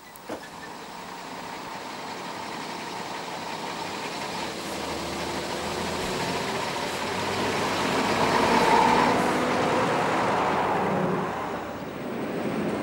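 Uerdinger railbus's diesel engine running as the railcar approaches, growing steadily louder as it comes closer. Shortly before the end the sound drops and turns into the steady running noise of a railbus heard from inside its cab.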